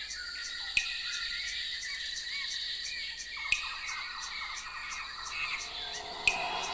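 Night-time nature ambience: crickets or other insects chirping in a steady rhythm of about four chirps a second over a constant high trill, with birds calling in short rising and falling notes. A sharp click comes about every three seconds.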